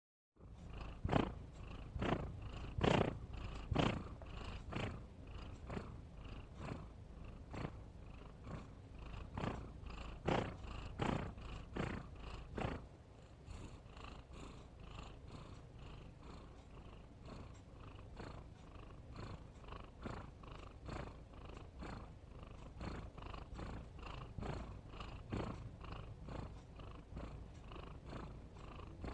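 A domestic cat snoring: a short raspy snore with each breath, about once a second, louder in the first dozen seconds and softer after that.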